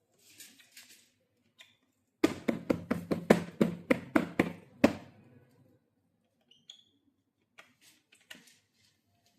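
Pads of a Roland SPD-20X octapad being struck in a quick run of about ten hits over roughly three seconds, each hit with a short low ring, then a few lighter scattered taps; the unit is in for a no-sound fault.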